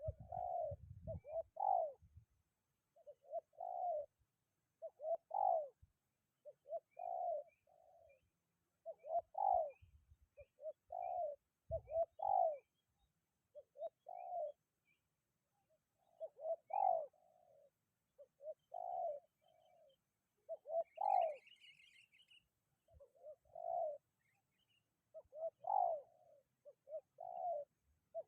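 Spotted doves cooing over and over in short repeated phrases, a new phrase every second or two. A brief higher chirp from a small bird comes about two-thirds of the way through, and low wind buffeting on the microphone is heard near the start and again near the middle.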